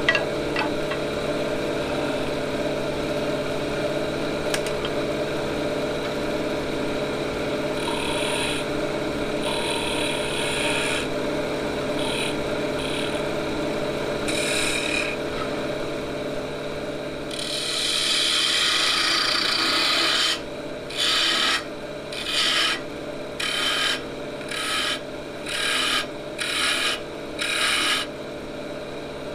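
Wood lathe running with a steady hum while a turning tool cuts a spinning ash blank. Short scraping cuts come in the first half and a longer continuous cut about two-thirds through. Near the end comes a run of about eight short cuts, roughly one a second.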